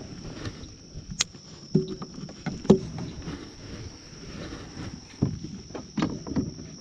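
Steady high-pitched buzz of insects, like crickets, with scattered sharp knocks and clicks over it, the loudest a little under three seconds in.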